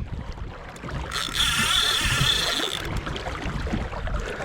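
A fishing reel's drag screaming as a hooked snapper runs and pulls line, a stretch of about a second and a half in the middle, over a steady low rumble of wind and water around the boat.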